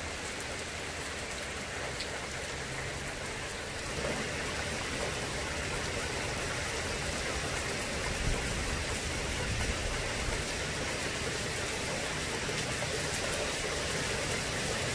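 Steady rain falling on a concrete driveway, lawn and road, an even hiss with faint scattered drop ticks; it grows a little louder about four seconds in.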